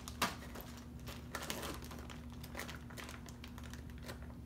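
Plastic soft-bait packaging crinkling as packs are handled and pushed into a tackle backpack's clear plastic storage pocket, with a sharp tap just after the start.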